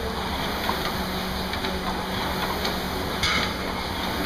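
Air-resistance rowing machine's fan flywheel whirring steadily under continuous rowing strokes, with a short hiss about three seconds in.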